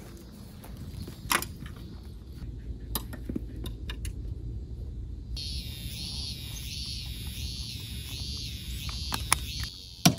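Scattered clicks and knocks of camping gear being carried and packed onto a motorcycle, with a sharp click near the end. From about halfway, a high pulsing call repeats roughly once every 0.7 s.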